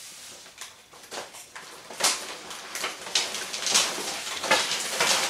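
Plastic wrapping of bagged firework rocket assortment packs crinkling and rustling as the packs are handled, in a string of irregular short rustles.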